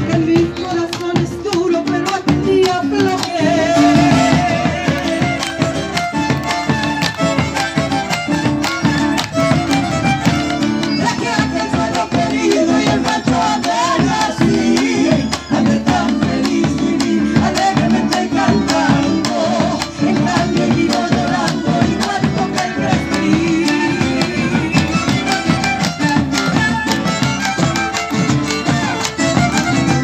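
Live Argentine folk ensemble playing: several bombos legüeros struck with sticks on the hide head and wooden rim drive a dense, steady beat, with drum kit and cymbals, acoustic guitar and a melody line over it.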